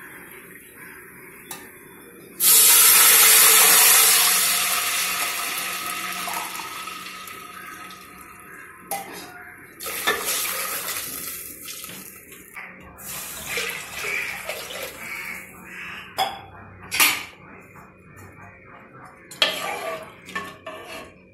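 Water poured from a steel tumbler into an aluminium pressure cooker of hot ghee and whole spices, a glassful at a time. The loudest pour comes about two seconds in, a rush that fades slowly over several seconds; two more pours follow, with metal clinks of the tumbler against the jug and cooker in between.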